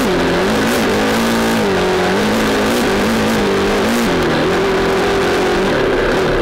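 Dirt bike engine running under way on a trail, its pitch dipping and rising again every second or so as the throttle is worked, then holding steadier near the end.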